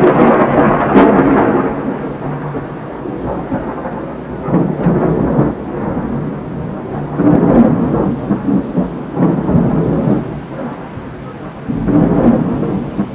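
Thunder rumbling in rolling peals, loud from the start and swelling again several times, over the hiss of rain.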